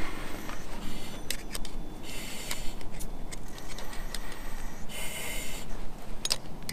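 Firefighter's SCBA harness straps and buckles being refastened: scattered clicks and metallic clinks of gear being handled, with two short hisses about two and five seconds in.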